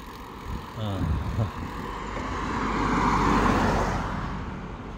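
A car driving past on the road alongside, its tyre and engine noise swelling to a peak about three seconds in and then fading away.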